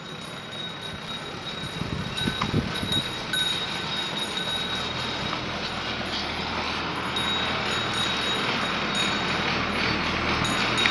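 Steady rumble of a motor vehicle with a rushing noise, growing louder over the first few seconds and then holding steady.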